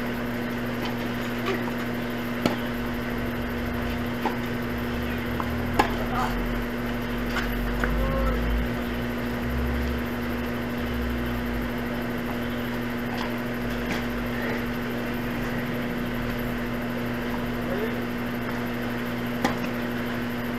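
Tennis balls struck by rackets during a doubles rally: a few sharp, separate pops, the loudest about two and a half and six seconds in, and one more near the end, over a steady low hum.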